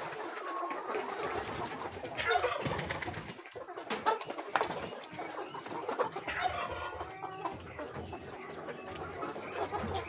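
A flock of brown laying hens clucking, with many short calls overlapping throughout and a few sharp clicks among them.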